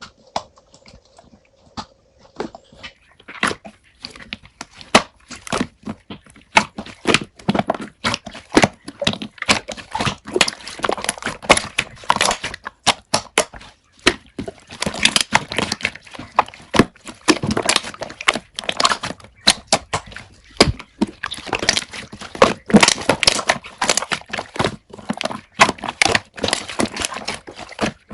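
Slime being squished and poked by hand, giving a dense, irregular run of wet clicks and pops that gets busier after the first few seconds.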